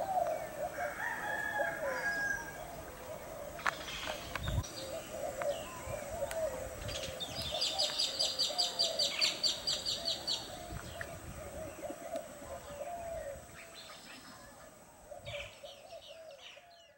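Chickens clucking and a rooster crowing, with a fast, even run of high chirps, about seven a second, for a few seconds in the middle.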